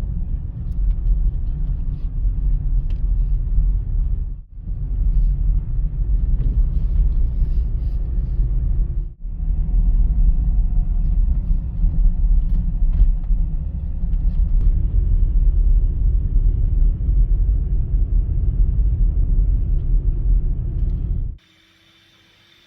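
BMW X3 driving on the road: a steady low rumble of engine and tyres, broken by two brief dropouts about four and a half and nine seconds in. Near the end it cuts off suddenly to a much quieter sound.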